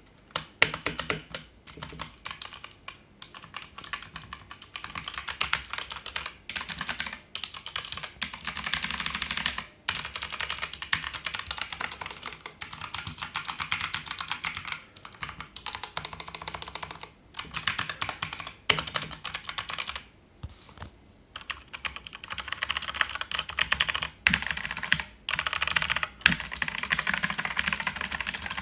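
Fast, continuous typing on a Gamen Titan Elite mechanical keyboard with linear red switches: the keys clack with no click, with a few short pauses.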